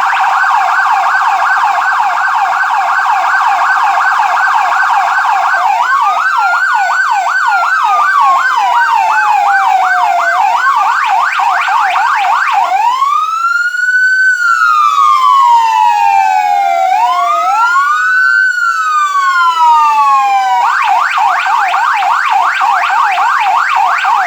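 SoundOff ETSA462HPP dual electronic siren sounding through two Whelen 100-watt speakers, playing two tones at once. It starts with two fast yelps overlapping; about six seconds in, one changes to a slow wail rising and falling over the other yelp; then two wails sweep up and down out of step with each other; about twenty seconds in, both go back to fast yelps.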